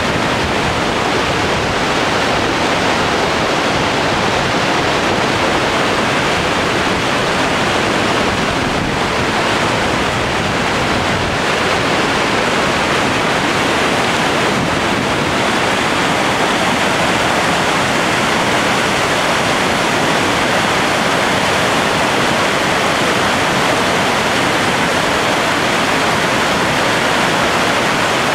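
Rushing whitewater of the Merced River at Happy Isles, a loud, steady roar of rapids and cascades.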